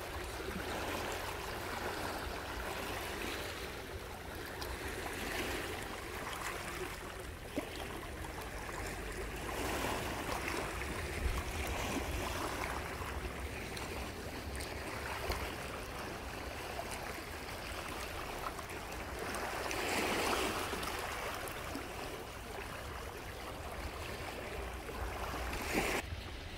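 Small sea waves washing onto a pebble beach, the wash swelling and falling back every few seconds over a low steady rumble.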